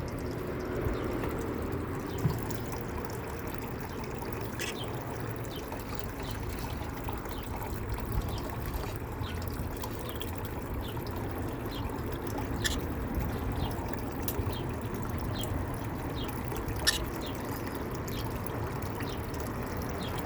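Steady trickling of water, with a few faint small clicks scattered through it.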